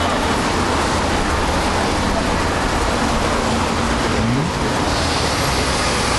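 Steady, loud road traffic noise with a heavy low rumble. A vehicle engine note rises briefly about four seconds in.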